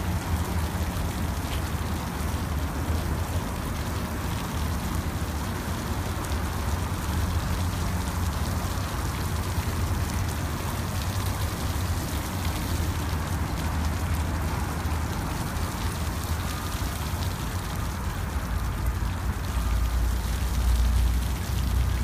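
Lawn water sprinkler spraying, its water pattering steadily on the ground like rain, over a steady low rumble.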